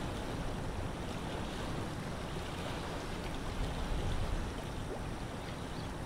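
Steady lakeside wind with water lapping at the shore, and a low rumble of wind on the microphone underneath.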